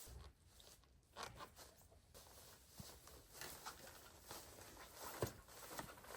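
Faint rustling and handling of camping gear, with scattered small clicks and a sharper knock about five seconds in.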